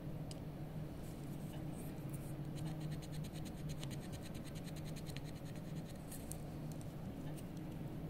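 Metal wax knife scraping shavings off a block of blue dental carving wax in short strokes, with a quick run of rapid scrapes in the middle.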